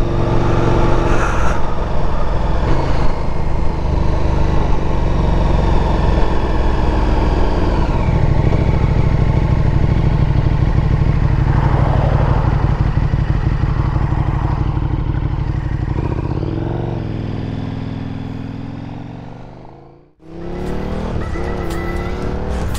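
KTM 1290 Super Duke R's V-twin engine, fitted with an Austin Racing exhaust, running steadily while cruising. Its note drops twice, about eight and sixteen seconds in, then fades out; music starts near the end.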